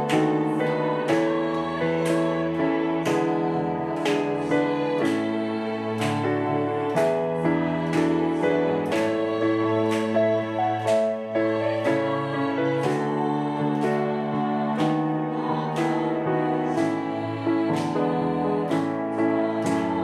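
Piano playing a slow hymn accompaniment in evenly struck chords, with a women's choir singing near the end.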